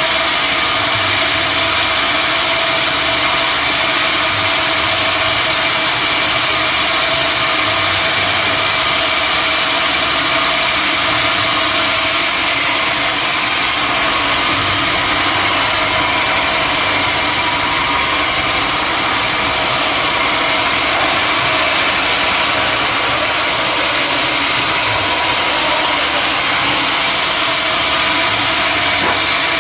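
Sawmill machinery running steadily, a loud, even machine noise with no breaks.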